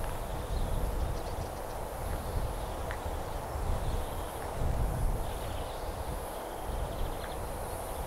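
Outdoor countryside ambience: a steady high-pitched hum that swells and fades slowly, short fast chirps and trills now and then, and a low uneven rumble underneath.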